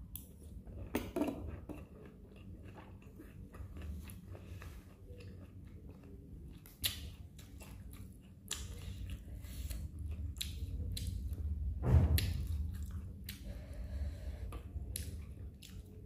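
Close-up chewing of a mouthful of sweet corn kernels: soft wet mouth clicks and squishes over a low rumble. There is a louder sudden sound about a second in and the loudest one about twelve seconds in.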